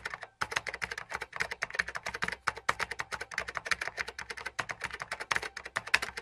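Computer keyboard typing sound effect: a rapid, continuous run of key clicks, about eight to ten a second.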